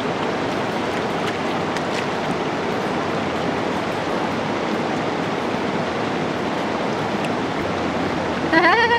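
Steady rushing of a fast-flowing mountain river, the Medicine Bow River, as an even wash of water noise. A short voice-like sound breaks in near the end.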